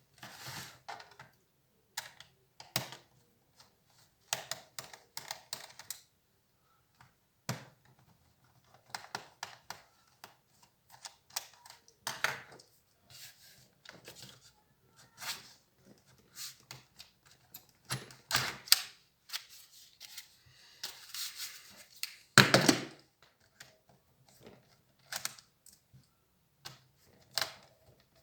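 Irregular clicks, taps and light rattles of plastic and metal parts as an HP Compaq 6910p laptop is taken apart by hand, with one louder knock about three quarters of the way through.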